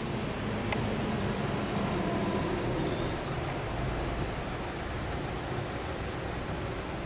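Steady street traffic noise, a rumble that swells over the first few seconds and then eases, with a single light click about a second in.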